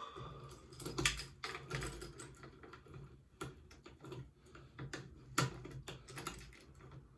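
Irregular clicks and light knocks of a steel quick-release bicycle rack being handled and fitted onto a push bike, over a low steady hum.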